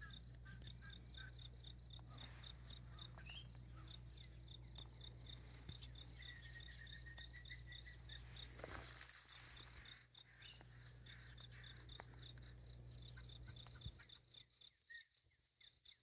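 Faint outdoor ambience: a high, regular insect chirping about three times a second that fades out near the end. A thin whistle runs for about two seconds from about six seconds in, and a brief hiss comes about nine seconds in.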